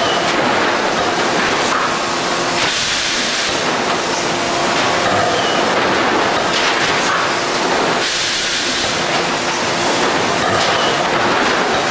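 Thermoforming line machinery running: a loud, steady wash of industrial machine noise, with the sound shifting in a cycle that repeats about every five seconds.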